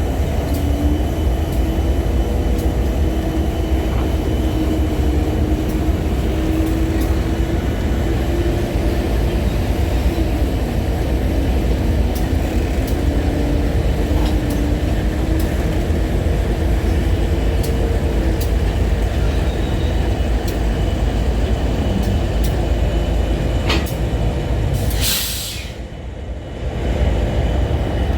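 Long freight train of flatcars rolling past: a steady heavy rumble with scattered sharp clicks and a faint wavering tone. About 25 seconds in there is a short burst of hiss while the rumble briefly drops.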